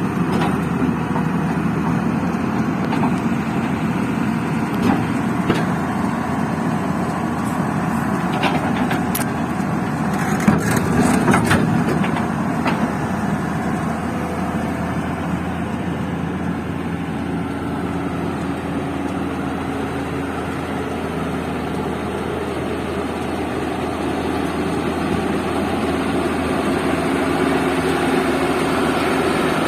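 Heavy diesel engine running steadily, with a few sharp clanks and knocks about ten seconds in.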